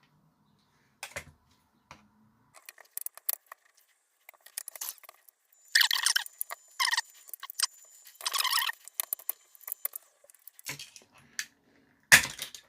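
Plastic casing of a handheld fan being pried and forced apart by hand: scattered small clicks, creaks and scrapes, with a few louder scraping bursts in the middle. Near the end comes a sharp crack as a piece of the plastic snaps.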